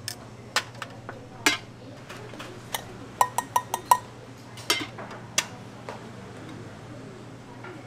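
Stainless-steel scoop clinking against a steel bowl while shredded chicken is scooped, then a run of five quick ringing metal taps in under a second as the scoop is knocked out over a bowl of rice, followed by a couple of clicks from metal tongs. A low steady hum runs underneath.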